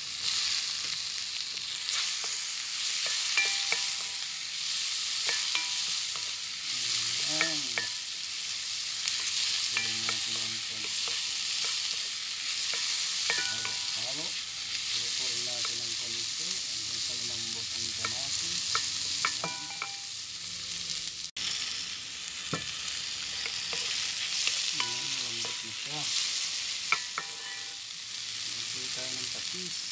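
Sliced onion, garlic and tomato sizzling in hot oil in a pot while a wooden spatula stirs them, scraping and tapping against the pot.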